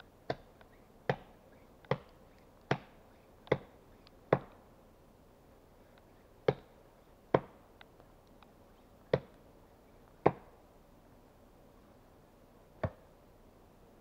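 Axe chopping wood in sharp, separate strikes: six in a steady run about one a second, then after a short pause five more at uneven intervals.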